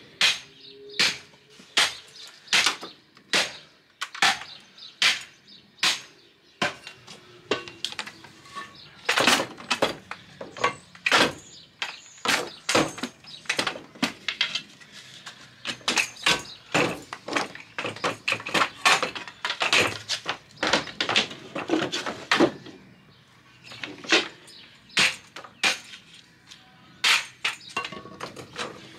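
Irregular knocks and clatters of scrap metal and wooden bed slats being handled and knocked together, sometimes several a second.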